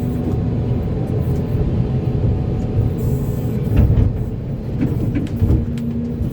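Volvo EC480D excavator's diesel engine running steadily under load, with a few sharp knocks about four seconds in and again a little later.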